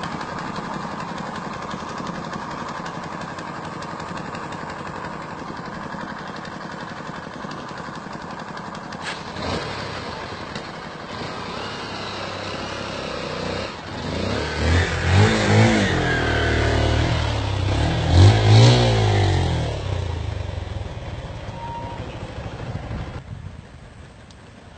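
Motorcycle engine running steadily, then revved hard in several bursts a little past halfway, its pitch rising and falling, before easing back near the end.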